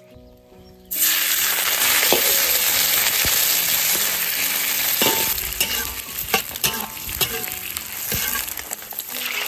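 Meat hitting hot oil in a pan and sizzling loudly, starting suddenly about a second in, then stir-fried with a spatula that knocks and scrapes against the pan now and then.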